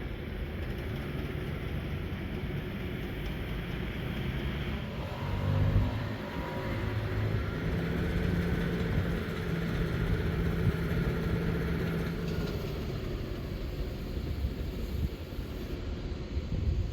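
Steady low engine rumble of a vehicle under way. A louder swell comes about five to six seconds in, and a steady hum sits over the rumble for several seconds in the middle.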